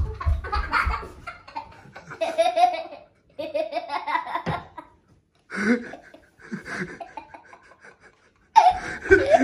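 A young child laughing in several bursts with short pauses, the loudest burst near the end; a few low thuds at the very start.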